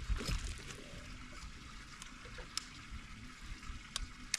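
Steady trickle of running water, with a few light sharp clicks.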